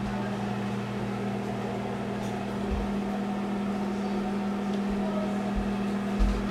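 Steady low electrical hum of a running appliance, with a few soft low bumps about three and six seconds in.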